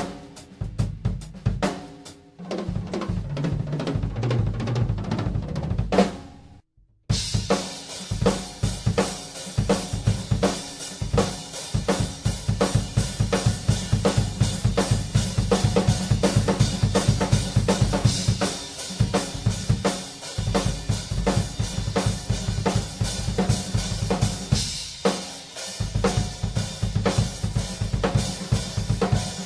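Tama Starclassic Bubinga Elite drum kit being played. A run of low, pitched drum strokes stops briefly about six to seven seconds in, then a steady groove follows with bass drum, snare and cymbals.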